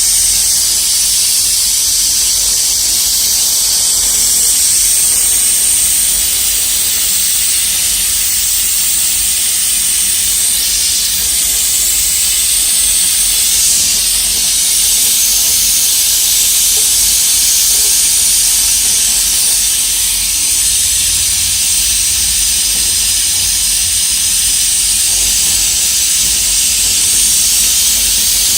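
A steady, high-pitched hiss of pressurised gas, with no breaks.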